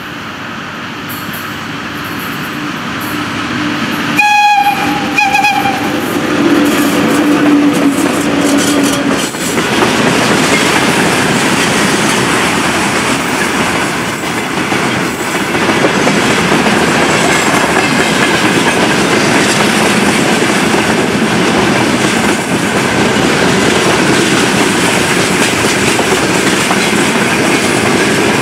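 VL80k electric locomotive approaching with a freight train, giving a short horn signal in two blasts about four seconds in. From about ten seconds in, the tank cars and open wagons roll past with a steady rumble of wheels on rail and clickety-clack over the rail joints.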